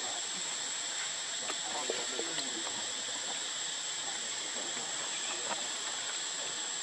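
Steady high-pitched drone of insects, with a few faint short squeaks and clicks about two seconds in.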